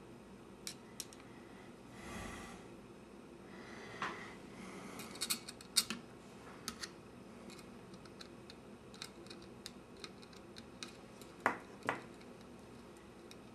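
Scattered small clicks and taps of a metal needle oiler and small parts being handled inside an open Bolex D8L 8mm cine camera, with a short soft noise about two seconds in and two louder knocks near the end.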